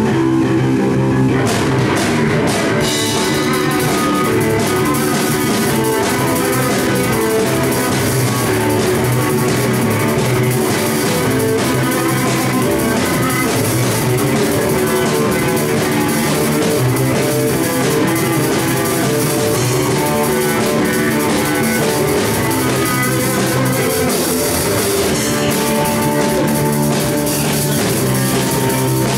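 Live rock band playing without vocals: a drum kit and an electric guitar.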